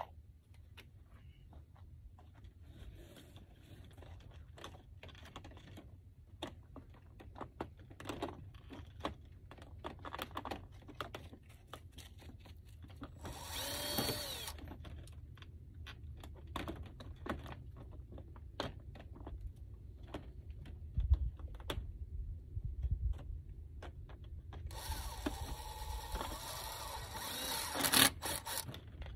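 Cordless drill driving screws into vinyl skirting panels: a short run about halfway through and a longer run near the end, the motor's pitch rising and falling as it spins up and slows. Scattered clicks and knocks of handling come in between.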